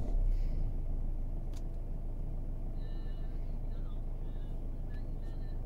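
Mercedes-Benz W204's OM651 four-cylinder diesel engine idling steadily just after being started, a little louder in the first second before settling.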